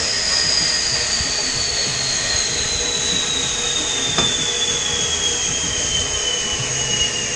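A shop machine running steadily: a loud hiss with a thin whine that slowly falls in pitch, and a light metal tap about four seconds in.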